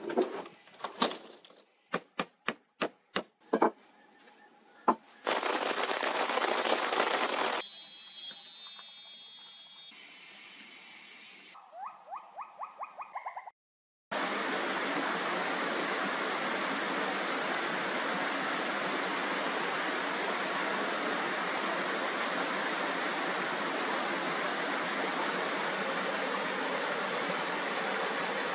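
Steady rush of a small stream pouring over a rock ledge in a low waterfall, filling the second half. Before it come edited intro sounds: several sharp knocks and cracks, a few seconds of noise, then a run of quick pulses, about four a second, ending in a short cut to silence.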